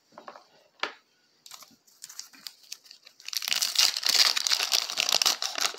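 Wrapper of a Donruss baseball card pack being torn open by hand: a few small clicks and rustles, then from about three seconds in a loud, dense crinkling as the wrapper is pulled apart.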